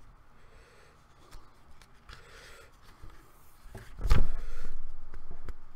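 Soft rustling and handling of items being unpacked. About four seconds in comes a heavy thump followed by a low rumble that fades over about a second and a half.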